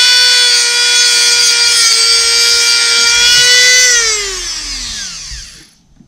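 Dremel rotary tool with a cutoff wheel running at high speed with a steady high whine. It is switched off about four seconds in and spins down, its pitch falling until it stops.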